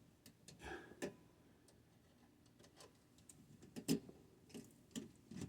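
Faint, scattered small clicks and taps of hands working on a pressure switch and its wiring, a few louder taps about a second in and near four seconds.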